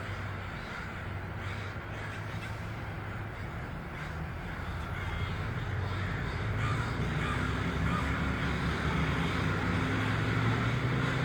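A large flock of crows cawing all at once, a dense unbroken chorus of overlapping caws. A low steady hum, like traffic, grows louder under it in the second half.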